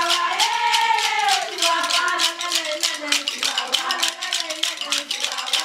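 A group of women singing together over a fast, even beat of shakers, with handclaps.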